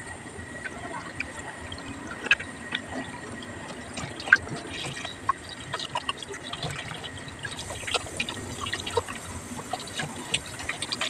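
Kitchen tap running in a thin stream into a steel bowl of water in a sink, with scattered small splashes and clicks as a whole tilapia is rubbed and rinsed under the stream.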